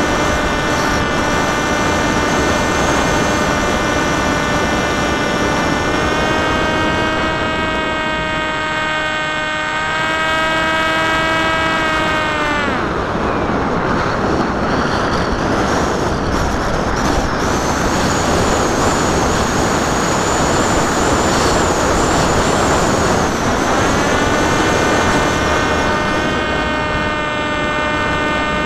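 Popwing foam flying wing's electric motor and propeller whining steadily over rushing wind, heard from the onboard camera. About 13 seconds in the motor whine stops and only wind rush remains. It starts again about 24 seconds in.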